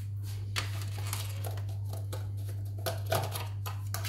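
Light rustling and a few small clicks from kitchen items being handled at the counter, over a steady low hum.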